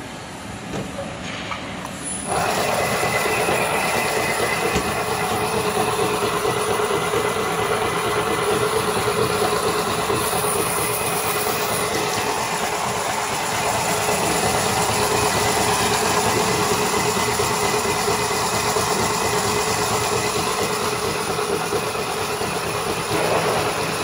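Wire harness braiding machine running: a dense, steady mechanical noise with a faint hum through it. It jumps up loud about two seconds in and holds steady.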